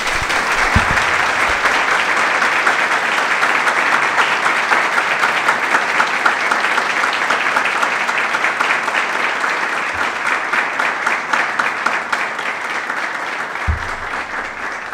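An audience applauding: many hands clapping in a dense, continuous patter that eases off gradually near the end.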